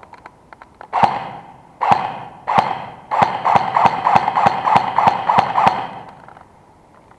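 Airsoft gun shots: three single shots about a second apart, then a quick string of about a dozen, each trailing a brief echo off concrete walls.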